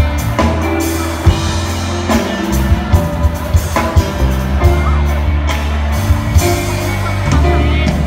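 Live band playing loudly through a PA: electric guitar, bass and keyboard over a strong bass line, with sharp drum hits at a regular beat.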